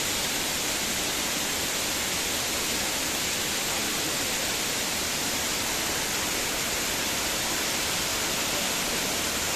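Waterfall rushing: a steady, unbroken hiss of falling water.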